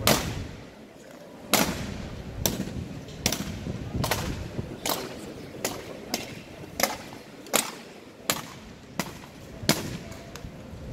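A run of sharp cracks, about one every three-quarters of a second, coming a little faster through the middle.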